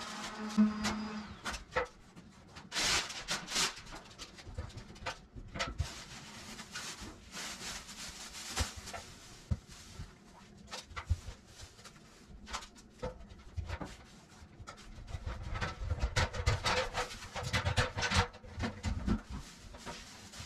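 Irregular rustling, scraping and light knocks from hands-on preparation work, with a few sharper clicks scattered through.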